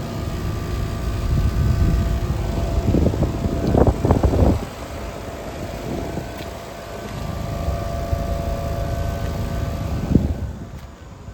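Outdoor air-conditioning condenser units running: fan whoosh and steady compressor hum, with a few low rumbling surges of wind on the microphone around the middle and near the end.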